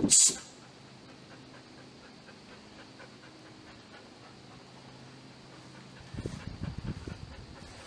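Golden retriever panting quietly, with a short sharp hiss right at the start and a louder bout of low knocking sounds from about six seconds in.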